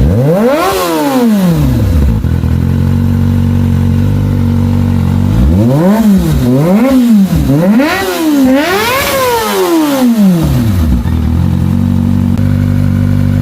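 Kawasaki ZX-25R's 249 cc inline-four engine breathing through a Leo Vince GP Corsa short carbon-fibre muffler, idling steadily. It is revved once near the start, then blipped four times in quick succession in the middle, each rev rising and falling back to idle.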